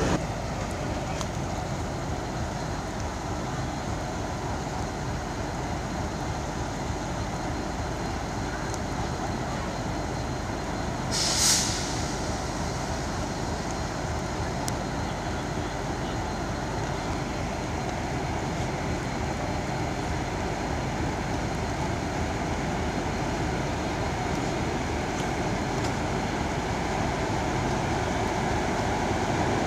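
WAP-4 electric locomotive hauling an express train out of the station, its running noise growing louder toward the end as it draws near, under a steady wash of noise. A short hiss about eleven seconds in.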